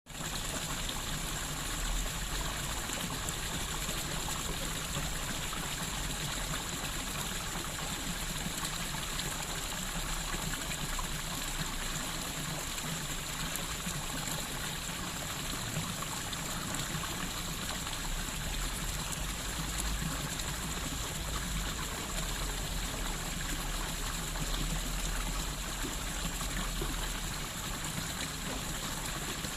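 Water fountain splashing steadily: falling water running constantly, without a break.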